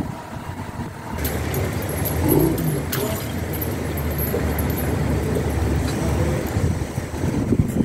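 An engine running steadily with a low rumble, starting about a second in and easing off shortly before the end, with a sharp click about three seconds in.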